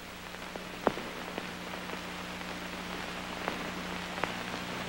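Old optical film soundtrack noise: a steady hiss and low hum with scattered crackles and pops, the sharpest about a second in.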